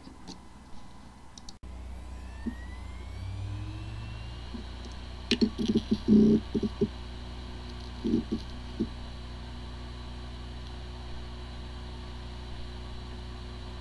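Recording of a hard drive spinning up with a rising whine, then running with a steady whir and a few dull knocks about five seconds in and again around eight seconds. The drive has disk firmware corruption yet sounds like a healthy drive.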